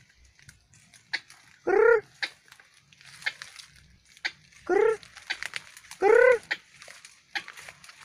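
White-breasted waterhen calling: three short croaking notes, each rising and falling in pitch, a second or more apart, with light crackling of dry leaves between them.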